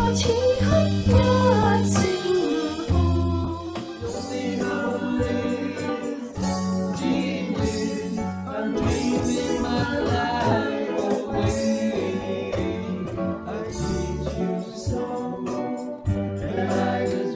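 A small band plays a pop song, with singing over electric guitar, bass, keyboard and electronic drums. A few seconds in the music cuts to a different song played by a similar line-up.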